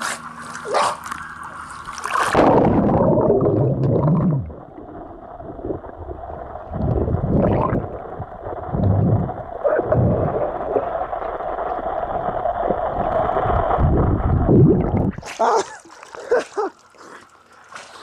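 Pool water splashing, then about two seconds in the microphone goes under the surface: some thirteen seconds of muffled underwater gurgling with a steady hum and repeated low thumps. It surfaces near the end into open-air splashing again.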